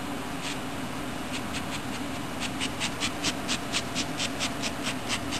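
Rubber bulb blower squeezed again and again, each squeeze a short puff of hissing air: one puff, a few more, then a quick run of about four or five puffs a second from a little before halfway in.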